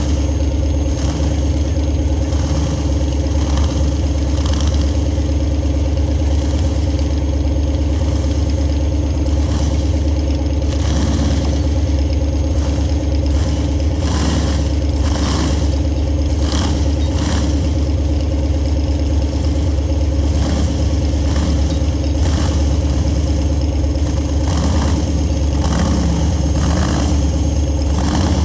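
Off-road rock crawler's engine running steadily at low revs while it crawls over boulders, with short rises in revs and scattered clatter.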